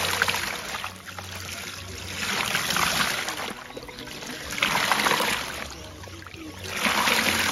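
Water surging out of a hand dredge pump's outlet hose and splashing into a plastic tub of water, in four surges about two seconds apart.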